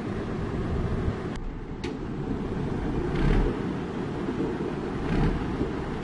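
Heavy diesel machinery running loud and steady: a crawler bulldozer on a self-loader truck's deck, with the truck idling. Two brief louder swells come about three and five seconds in.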